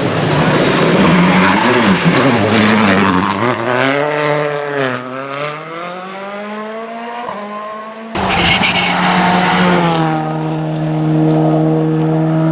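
Turbocharged four-cylinder World Rally Car engines at speed. The first car's revs rise and fall through gear changes, dip and climb again around five seconds in, then the engine fades as the car moves away, with a sharp pop near the end of that stretch. About eight seconds in, an abrupt cut brings a second car holding a high, steady engine note.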